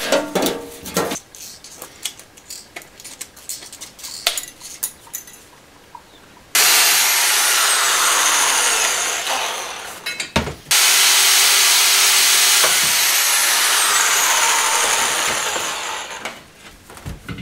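Tin snips cutting a small offcut of galvanised sheet steel, a run of short clicks and snips. Then a small handheld power tool grinds the steel piece held in a vise, loud and steady, for about four seconds. It stops briefly, then runs again for about five seconds and winds down near the end.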